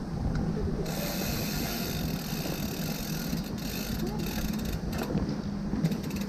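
Bicycle freewheel hub ticking rapidly as the bike coasts, over a steady low rumble.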